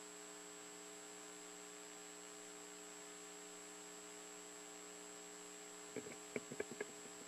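Steady, faint electrical hum of the sound system, a constant drone with no change in pitch. A few faint short clicks and sounds come in about six seconds in.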